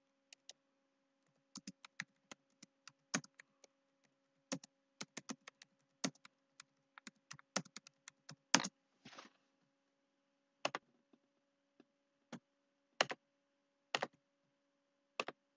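Typing on a computer keyboard: irregular keystrokes, some in quick runs, with a pause of about a second past the middle, over a faint steady electrical hum.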